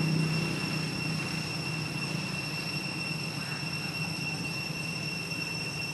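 Steady low background drone like a distant engine, easing slightly about a second in, under a constant high-pitched buzz.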